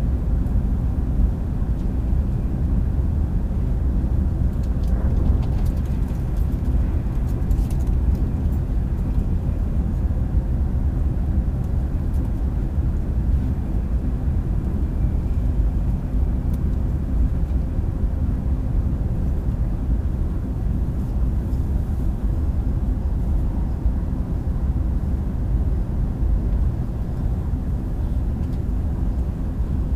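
Steady low rumble of a RENFE AVE Series 103 (Siemens Velaro E) high-speed train running at speed, heard from inside the passenger coach.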